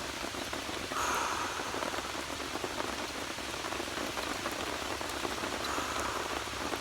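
Steady rain falling, a dense patter of drops, briefly swelling about a second in.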